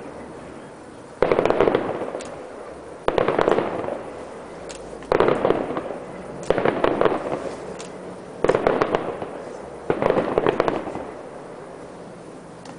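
Fireworks bursting: six loud bangs about one and a half to two seconds apart, each trailing off in a dense crackle that fades over about a second.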